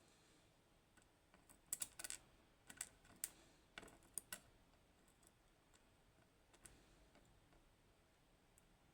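A cluster of light, sharp clicks and taps over about three seconds, then a few faint ticks: small steel lock pins and springs being handled and set down as a pin-tumbler lock is disassembled.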